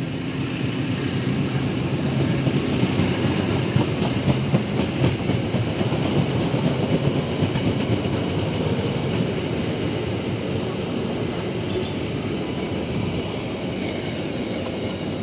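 Passenger train coaches rolling past, steel wheels running and clacking over rail joints, with a run of louder clacks about four to seven seconds in before the noise eases a little toward the end.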